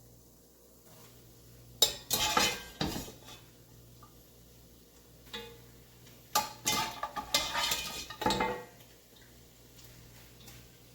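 Metal spoon scraping and clattering against a cooking pot of curry, in two bouts: one about two seconds in, and a longer one from about six to eight and a half seconds in.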